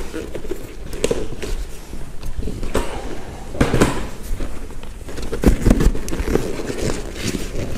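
Handling noise from a Safety 1st Mellow high chair: the fabric seat cover rustling and several irregular plastic knocks and clicks as the cover is fitted and fastened onto the chair's frame.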